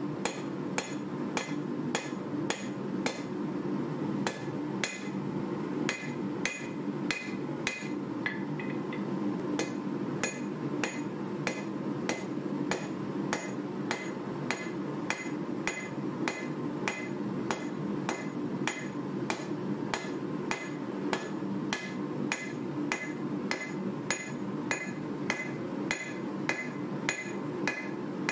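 Hand hammer striking a red-hot 1095 carbon steel bar on a steel anvil, forging it into a knife blade: steady blows about two a second, each with a short metallic ring. A steady low hum runs underneath.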